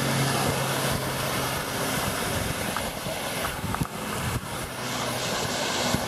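Steady rushing noise of water running down the waterslide, with wind on the microphone and a low steady hum underneath.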